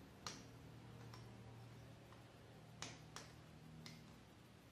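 Faint, sharp clicks as yarn is pulled taut and hooked around the metal nails of a string-art board, four or five ticks spread irregularly over a few seconds, over a low steady hum.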